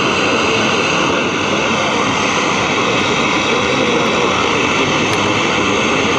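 General Electric table radio's speaker putting out a loud, steady hiss and rush with several stations jumbled together and steady whistling tones. This is the sign of broad, unselective IF stages, which the repairer likens to IF cans with no capacitors in them.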